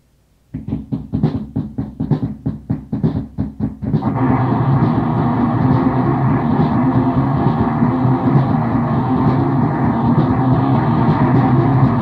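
Grindcore band on a lo-fi demo-tape recording, starting a new track after a short silent gap. About half a second in come rapid, evenly spaced hits of drums and distorted guitar. From about four seconds in it breaks into a dense, continuous wall of distorted guitar, bass and drums.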